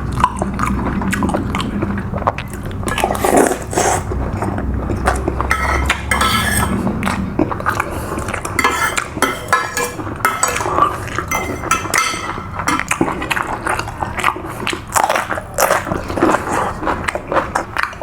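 Spoon and fork clinking and scraping on a plate while someone chews and bites food, in short repeated clicks.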